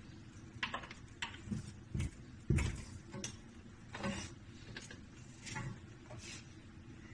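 Sink drain pipe and braided water hoses being handled and pushed onto their fittings by hand: a string of irregular clicks, taps and knocks, with a heavier thump about two and a half seconds in.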